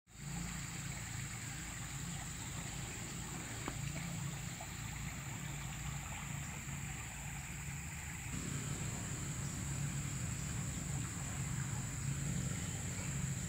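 Steady rush and low rumble of a swollen, fast-flowing river, with a constant high-pitched hum above it. It gets a little louder about eight seconds in.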